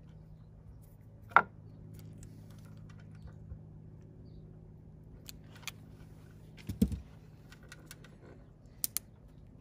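Sharp plastic clicks of a blue quick-splice wire connector being squeezed shut with pliers and snapped closed, splicing the new brake light's ground wire: one loud click a little over a second in, a small cluster near the middle and two more clicks near the end.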